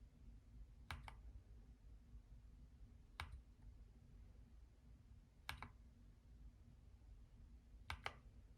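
Keychron K2 mechanical keyboard key pressed four times, roughly every two seconds, each a quick pair of quiet clicks as the key goes down and comes back up.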